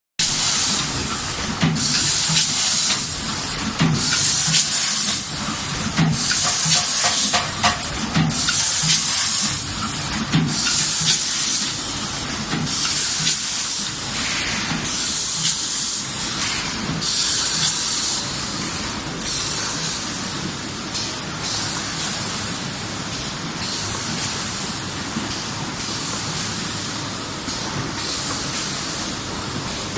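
Automatic pet-food pouch packaging machine running, with short bursts of air hiss repeating about every one and a half seconds over a low clatter from its mechanism. In the last third the hiss bursts fade and it runs more steadily.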